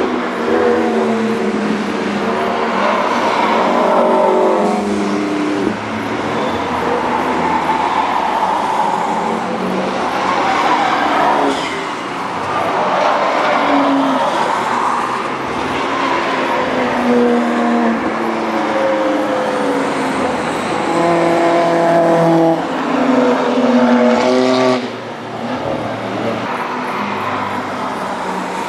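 Several cars driven hard on a race circuit, passing one after another and often overlapping, each engine revving up and down as it goes through the gears. The level drops suddenly about 25 seconds in.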